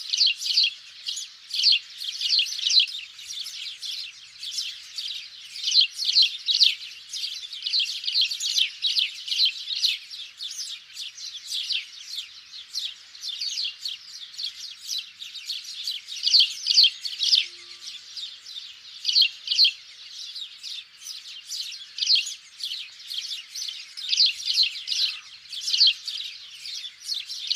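Sparrows chirping in a dense, continuous chatter of short, overlapping chirps, several a second, with louder clusters every second or two.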